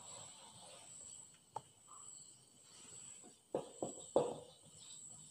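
Marker pen writing on a whiteboard: a few short strokes about three and a half to four seconds in, after a single click. A faint steady high-pitched tone runs underneath.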